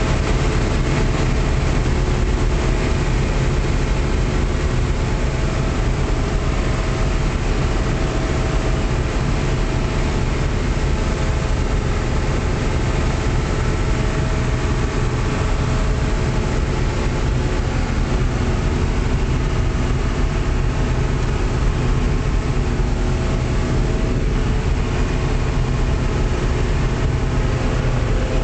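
John Deere 6600 combine running steadily while harvesting wheat, a constant engine and machinery drone with a strong low end.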